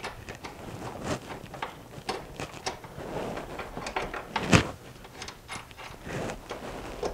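Scattered metallic clicks and knocks of an open-end wrench working the shift linkage adjustment nut, with one louder knock about four and a half seconds in.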